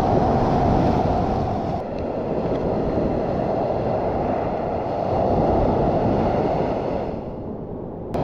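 Rough sea surf breaking and washing up a sand beach, swelling and easing as the waves come in, with wind rumbling on the microphone.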